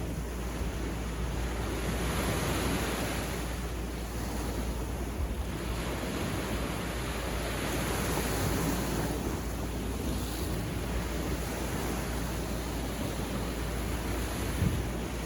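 Sea surf breaking and washing up a beach, swelling and easing every few seconds, with a low rumble of wind on the microphone.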